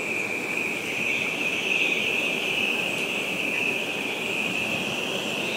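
Hurricane wind and rain: a rough, gusting rumble with a steady high whistle over it that swells and eases.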